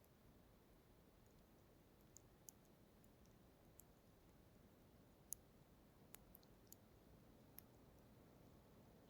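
Near silence: a faint low background hiss with a scattering of tiny, sharp, irregular clicks.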